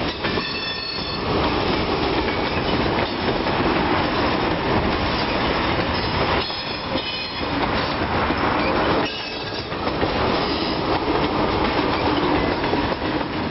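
Freight train cars rolling steadily past with a continuous rumble. Three times the wheels squeal high and briefly against the rail: near the start, around the middle and about ten seconds in.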